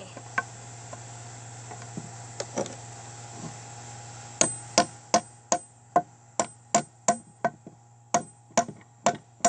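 Hammer blows on wood, a steady run of sharp strikes about three a second starting about four seconds in, driving a fastener in. Before them, only a low steady hum.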